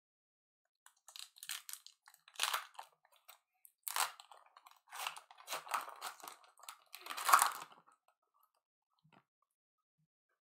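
Trading-card pack wrapper being torn open and crinkled by hand: a run of crackling rips and rustles over several seconds, loudest near the end.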